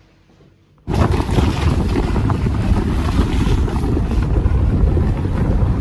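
Wind buffeting the microphone over the rumble of a car riding a rough, potholed road. It starts abruptly about a second in, after a moment of quiet room tone.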